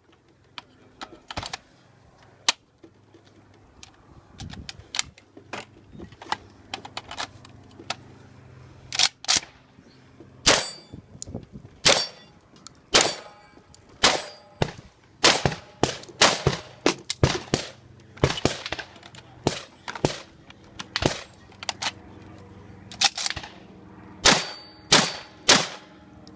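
A long run of sharp metallic clanks and bangs at uneven intervals, a few leaving a short ring; they come sparsely at first and then every half second to a second from about nine seconds in.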